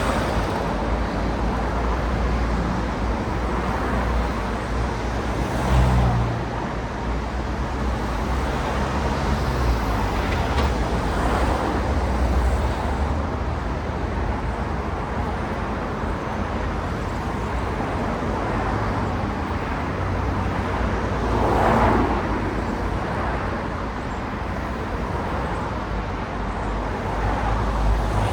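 City road traffic: a steady wash of cars passing, with engine rumble underneath. A louder vehicle goes by about six seconds in, and another around twenty-two seconds in.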